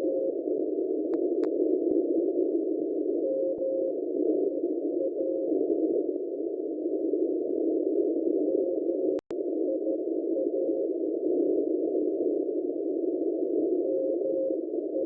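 Shortwave receiver tuned to an unidentified Morse code signal on 7999 kHz. A faint keyed tone comes and goes in short groups of dots and dashes under loud band-limited hiss. The audio cuts out briefly about nine seconds in.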